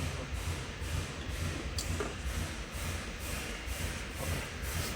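Steady low background rumble with a faint click about two seconds in.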